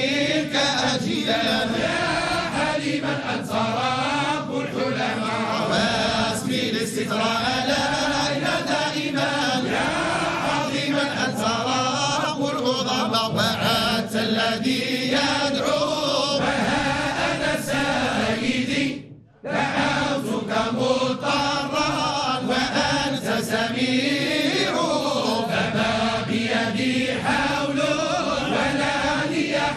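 A group of voices chanting Islamic devotional verses together in a slow, melodic chant. It breaks off briefly about two-thirds of the way through, then resumes.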